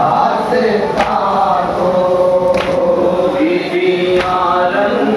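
A male voice through a microphone chanting a Shia lament (nauha), with a group of voices joining in. Three sharp slaps of hands striking chests (matam) fall in time, about one every second and a half.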